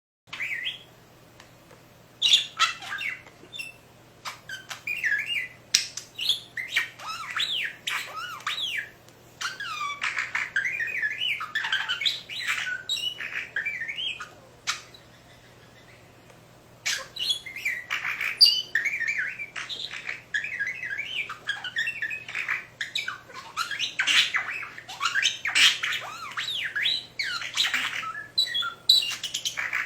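Budgerigar chattering in fast warbling whistles and squawks that sweep up and down in pitch, imitating R2-D2's beeps and whistles. It comes in runs, with a short pause near the start and a longer one of two or three seconds about halfway through.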